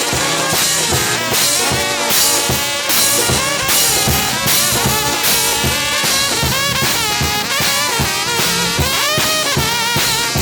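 Live brass band with trumpets and trombones playing over a drum kit with a steady beat.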